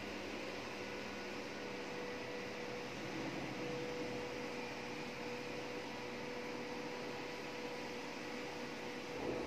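Small wire-rope home lift running: a steady mechanical hum with a faint held whine as the car travels its shaft. A brief knock near the end.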